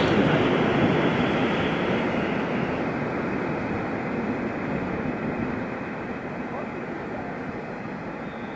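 Freight train of tank wagons passing at speed, its rumble fading steadily as the train pulls away down the line.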